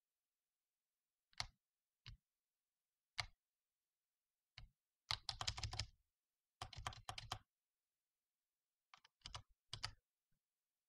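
Computer keyboard keys being pressed: a few single keystrokes, then two quick runs of typing about five and six-and-a-half seconds in, and a few more keystrokes near the end.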